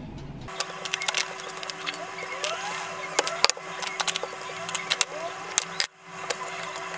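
Wooden rolling pin and hands working a sheet of bread dough on a board: scattered clicks and knocks over a steady low hum, with a few short rising squeaks.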